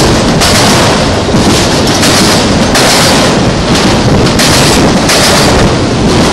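Autorack freight cars rolling past at speed close by: a loud, steady rumble and clatter of steel wheels on the rails, with a bright hiss that swells and fades about once a second.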